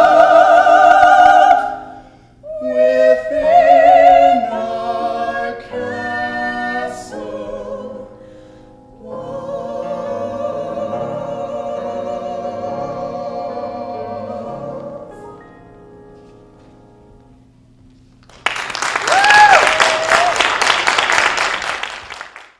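Musical-theatre singing drawing out the final held notes of a song with vibrato, then fading away. About eighteen seconds in, audience applause breaks out loudly, with a whoop over it.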